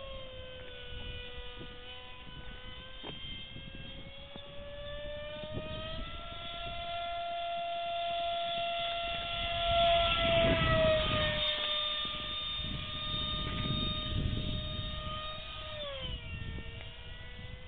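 Electric RC airplane's motor and propeller whining in flight, the pitch stepping up about six seconds in as the throttle opens, holding steady, then dropping near the end. A rushing noise swells around the middle, where it is loudest.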